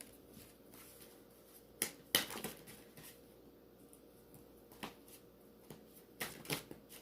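Tarot cards being pulled from the deck and laid down: several short, sharp card snaps and slaps, the loudest cluster about two seconds in, another near five seconds and a pair near the end.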